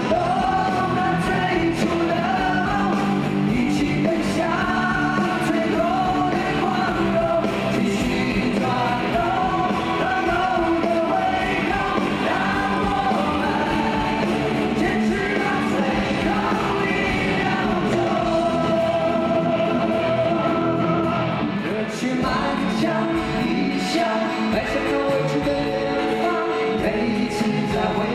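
Live rock band performance: two male voices singing a melody over acoustic and electric guitars and a full band.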